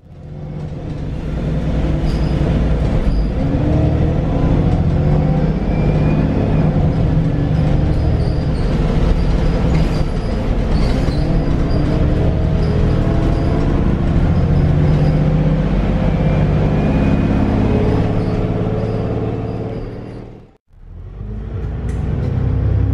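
Cummins ISBe 250 inline-six diesel engine and Voith DIWA 854.5 automatic gearbox of a VDL DB300 double-deck bus, heard from inside the passenger saloon as the bus drives. The engine note rises and falls repeatedly as it pulls through the gears. The sound fades in at the start and drops out for a moment near the end before resuming.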